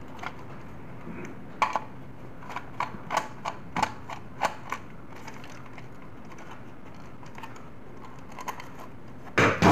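Small clicks and taps of a screwdriver and fingers working on a plastic switch board while a switch terminal screw is tightened onto a wire: a run of sharp clicks in the first half, then a louder bump near the end.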